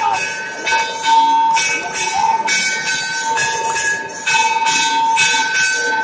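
Temple bells ringing in the shrine, struck about twice a second, their ringing tone hanging on between strokes.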